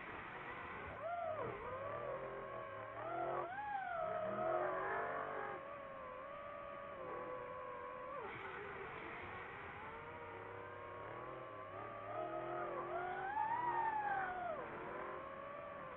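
FPV drone's motors and propellers whining, the pitch swooping up and down as the throttle changes.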